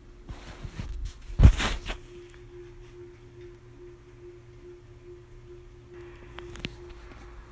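Handling noise as the phone and disc are moved: rustling with a loud dull bump about a second and a half in. A faint steady hum follows, with two light clicks near the end.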